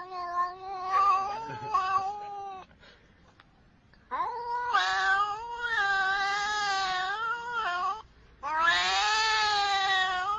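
A cat yowling in long, drawn-out wails with a steady pitch, three of them with short pauses between: one ending about two and a half seconds in, one lasting about four seconds, and one starting near the end.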